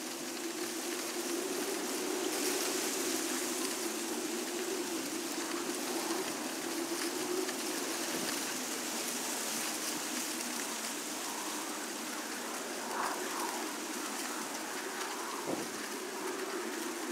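Case IH 9370 Steiger tractor's turbocharged six-cylinder diesel running steadily under load, pulling a deep-working disk ripper, as a steady hum under an even rushing noise.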